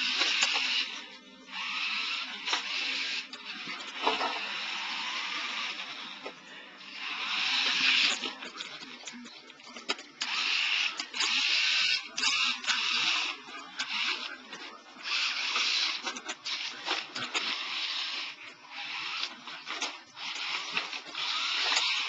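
Toy remote-control car's small electric motor and wheels whirring in spurts, starting and stopping every second or two, with scattered clicks.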